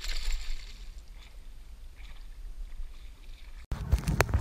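A brief splash of water at the start, then a faint steady background. Near the end the sound cuts abruptly to a run of loud knocks and thumps.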